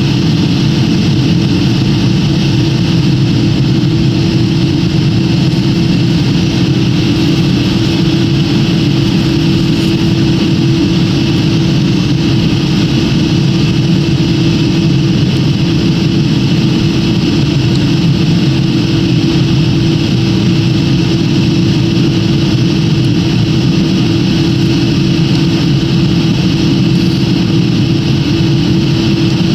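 Steady jet airliner cabin noise: the engines and airflow make a constant hum and rush, unchanging throughout.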